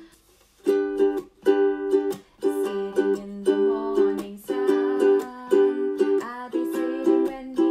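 Concert ukulele strummed in a steady rhythm, chord after chord with a few chord changes, starting after a short pause.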